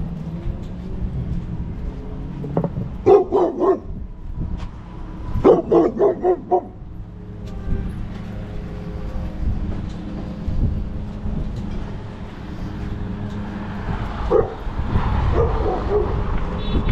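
A dog barking in quick runs of four or five barks, about three seconds in and again about five and a half seconds in, with a few more near the end, over a steady low hum.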